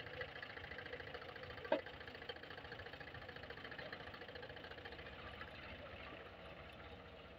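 Ford 3610 tractor's three-cylinder diesel engine running with a steady, even beat, fading slightly toward the end. There is a single short knock a little under two seconds in.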